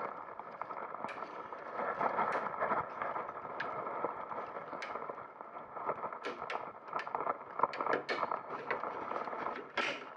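Plastic side cover of an HP Deskjet 930c printer being pried loose by hand: steady scraping and creaking of plastic with many small sharp clicks, and a louder click near the end as the cover comes free.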